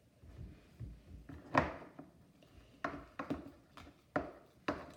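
A mixing utensil knocking and scraping against a bowl while stirring sticky slime, with irregular clacks about twice a second from the middle onward.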